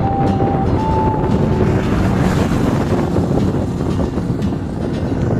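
Steady wind rushing and buffeting over the microphone, heavy and low. A thin high tone stepping in pitch sounds over it for the first second and a half.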